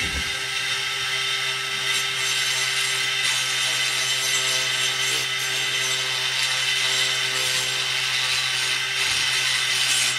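Dremel rotary tool running steadily with a ball-shaped diamond burr, grinding against the exhaust port edge of a Huztl 372XP clone chainsaw cylinder: a steady high-pitched whine with a grinding hiss. It is nicking a small bevel around the port edge so the piston rings don't hook.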